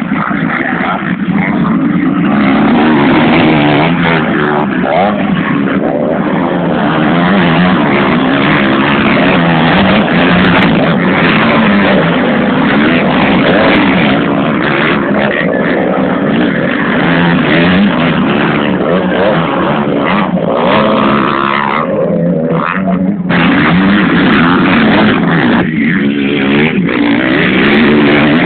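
Several motocross bikes, a field of mostly four-stroke machines, racing on a dirt track, their engines loud and revving up and down as they pass and go over jumps. The level dips briefly a few times as the pack moves away.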